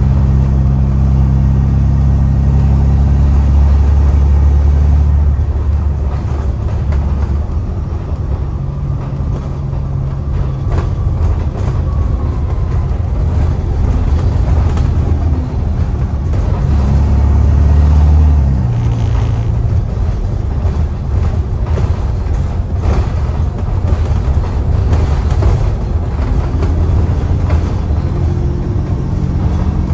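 Alexander Dennis Trident/Enviro400 double-decker bus's diesel engine, under way and heard from the upper deck, with a loud blown-exhaust note. The engine's deep note falls back twice, about five and about eighteen seconds in.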